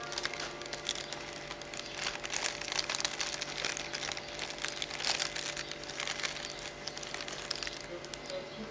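Thin plastic bread bag crinkling and rustling as it is handled, a continuous run of irregular crackles.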